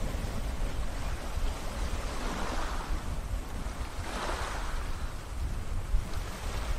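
Small waves lapping on a sandy shore, washing in twice a couple of seconds apart, over a steady low rumble.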